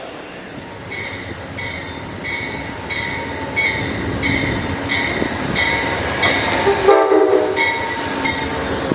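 Northbound Amtrak Northeast Regional passenger train approaching, its rumble building. A bell rings steadily about one and a half strokes a second, and a short horn blast sounds about seven seconds in.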